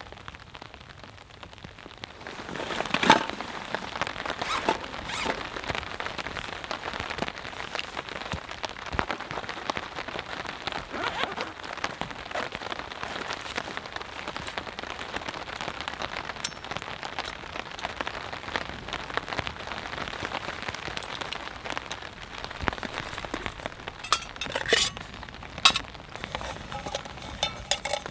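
Steady rain pattering on a tarp overhead, growing heavier about two seconds in, with sharp louder drops striking close by now and then, several of them near the end.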